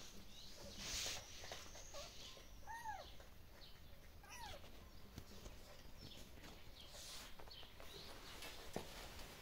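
Kittens mewing faintly: two short mews that rise and fall in pitch, about three and four and a half seconds in, with a brief rustle about a second in.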